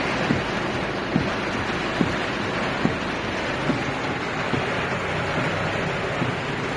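A steady rush of water, typical of torrential rain and floodwater, with a soft low thud repeating about once a second.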